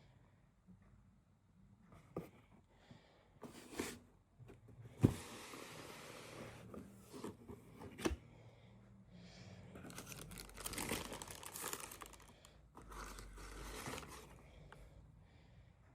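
Paper packaging crinkling and rustling as a shoebox is opened, with a few sharp knocks of the box and its lid being handled.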